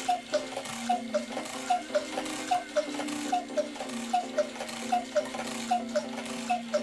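Cuckoo clock's brass movement ticking as it runs. The ticks come in close pairs, an uneven tick-tock, with a pair a little under once a second.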